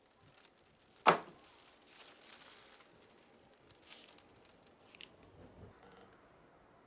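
A single sharp knock about a second in, then light rustling and crinkling with a few small clicks, as of materials being handled.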